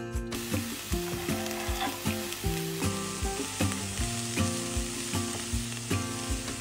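Food sizzling as it fries in a hot pan. The sizzle starts just after the opening and grows brighter about three seconds in, over background music with a steady beat.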